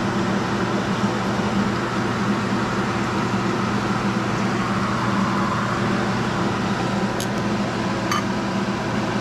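Jalapeños and steak frying in hot oil, a steady sizzle over a constant low hum. Two light clicks come near the end.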